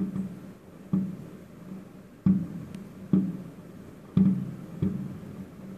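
Aerial fireworks shells bursting overhead: six booms at uneven intervals of roughly a second, each dying away in a low echo.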